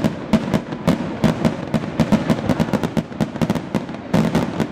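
Fireworks display: a rapid run of sharp bangs and crackles, several a second, thinning out after about two and a half seconds before another quick cluster near the end.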